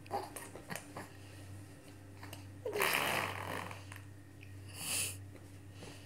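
A baby blowing a raspberry, a wet sputter through pursed lips about three seconds in, followed near five seconds by a short spitty hiss.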